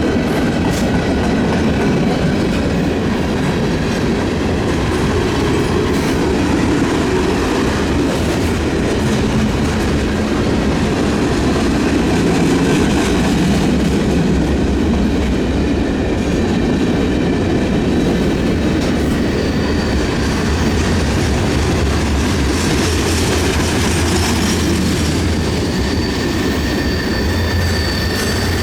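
Loaded freight cars rolling past at speed: a steady heavy rumble of steel wheels on rail with a faint regular clickety-clack at the rail joints. In the last third a thin high wheel squeal comes in over the rumble.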